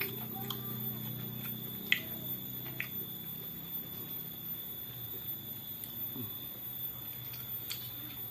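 Person eating at close range: a few sharp clicks of chewing and handling food, the loudest about two seconds in, over a steady electrical hum.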